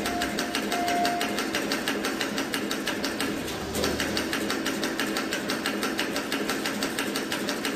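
CNC wire bending machine forming wire into a zigzag, its bending head and wire feed clicking in a rapid, even rhythm of about five strokes a second.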